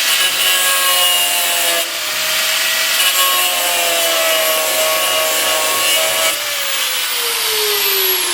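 Angle grinder with a cutting disc cutting through metal: a loud hissing grind over the motor's steady whine, in two stretches with a short break near two seconds in. After about six seconds the cut stops and the motor winds down with a long falling whine.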